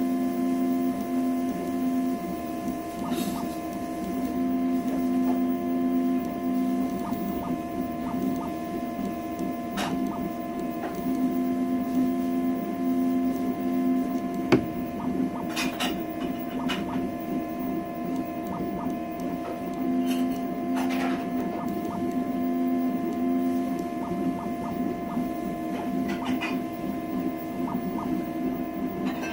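CoreXY conveyor-belt 3D printer running, its stepper motors whining in tones that shift every few seconds as the print head and belt move, over a steady fan hum and with scattered light clicks.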